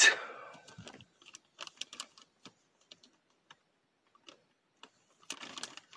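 Sealed plastic Happy Meal toy bag crinkling in the hand, in scattered small crackles and clicks, with a denser rustle near the end.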